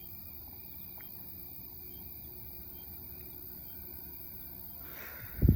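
Crickets and other night insects chirping steadily, with a brief loud low thud near the end.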